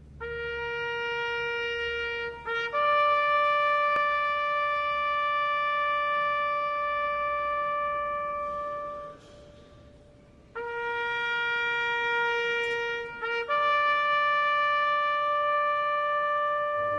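Music: a brass instrument holds a long lower note, then a long higher note. After a short break around the middle it plays the same two notes again.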